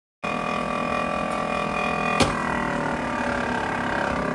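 Compact air fryer running, its fan motor giving a steady hum with a whine over it, and a single sharp click about two seconds in.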